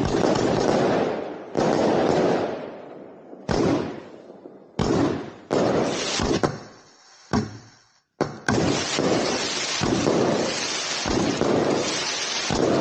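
Fireworks going off close by. A dense run of bursts fades over the first two seconds, then about seven separate bangs follow, each trailing off, roughly a second apart. From about eight and a half seconds a continuous, unbroken barrage takes over.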